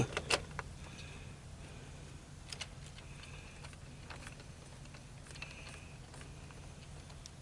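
A few faint clicks and taps of a plastic RC truck wheel and its parts being handled, over a steady low hum.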